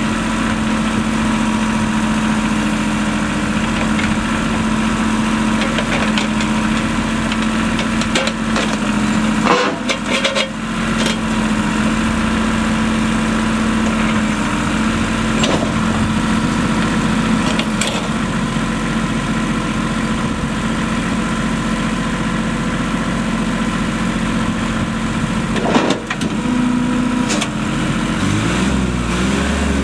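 New Holland TC30 compact tractor's diesel engine running steadily, with a few sharp clanks about ten seconds in and again near the end. Just before the end the engine's pitch rises and falls.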